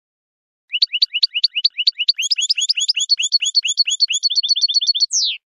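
European goldfinch singing: a fast run of short rising notes, about eight a second, that quickens into a tighter trill near the end and finishes on one downward-sweeping note.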